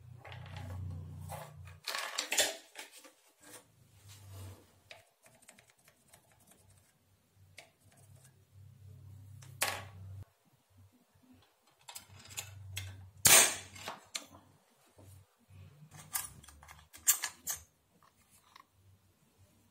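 Scattered sharp metallic clicks and taps from handling small metal parts: a brass hinge and copper sheet set down on a wooden bench and marked with a pointed scriber, then brass fittings picked out of a plastic organiser. The loudest tap comes about thirteen seconds in, with a cluster of clicks a few seconds later.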